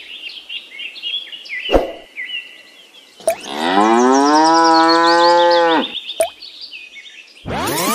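A cow moos once, a long call of about two and a half seconds that begins about three seconds in. Near the end comes a rising swoosh.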